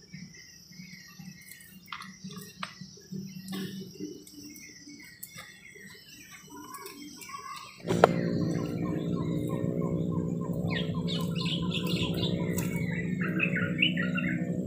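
Birds chirping and calling, with a few light clicks. About eight seconds in, a sharp click is followed by a steady low hum made of many evenly spaced pitches, louder than what came before. More bird calls carry on over the hum.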